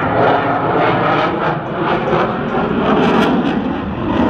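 Loud, rough jet noise from the F-22 Raptor's two Pratt & Whitney F119 turbofan engines, with a crackling edge.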